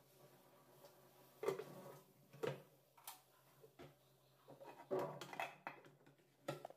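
Aluminium pressure cooker and its lid knocking and clinking against a stainless steel sink several times while the cooker is tipped to drain the water off boiled chickpeas. There is a quick cluster of clatters about five seconds in.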